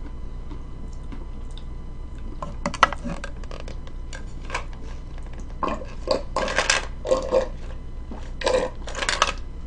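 Drinking from a plastic bottle of lemon sparkling water: a few light clicks from the bottle about three seconds in, then a run of gulps in the second half.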